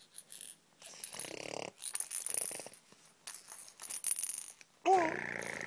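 A person making mouth noises: a run of raspy, hissing sputters about a second apart, then a louder pitched, wavering voiced squeal near the end.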